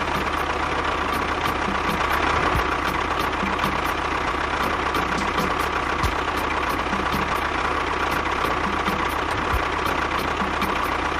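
A motor running steadily at idle, with a faint regular ticking.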